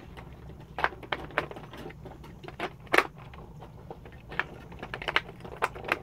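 Irregular plastic clicks and taps from hands working at a toy robot's plastic body, the loudest about three seconds in, over a low steady hum.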